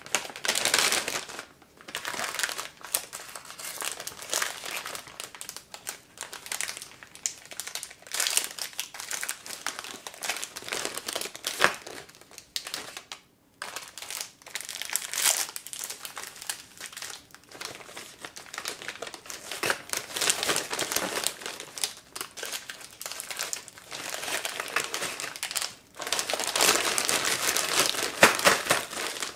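Cellophane biscuit wrappers and a plastic zipper bag crinkling as biscuits are unwrapped by hand and dropped into the bag, in irregular bursts with short pauses. The rustling grows louder and denser near the end.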